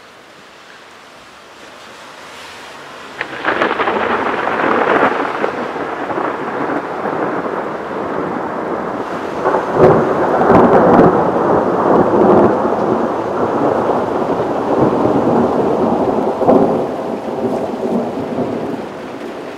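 A thunderstorm: a faint hiss builds, then thunder breaks in suddenly about three seconds in and rolls on, crackling and rumbling with rain, loudest about ten seconds in.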